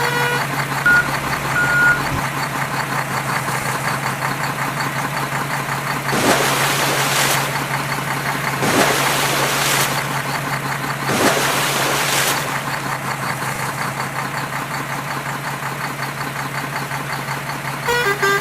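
Steady low drone of a heavy vehicle engine, as from a backhoe loader at work. Three rushing noise swells of about a second each come roughly two and a half seconds apart in the middle.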